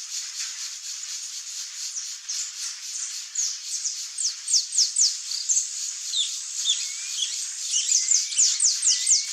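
Saffron finch singing: a series of quick, sharp whistled notes, each sliding downward, coming in clusters, loudest around the middle and near the end. Under it runs a steady high, faintly pulsing hiss.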